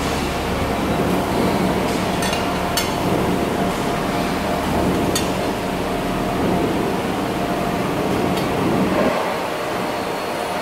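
Steady factory machinery noise: a broad rushing sound over a low hum, with a few sharp clicks. The low rumble drops away about nine seconds in.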